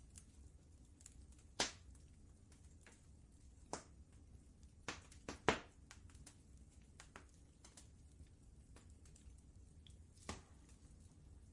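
Wood fire in a fireplace crackling, with irregular sharp pops, a few louder ones standing out, over a faint low steady rumble.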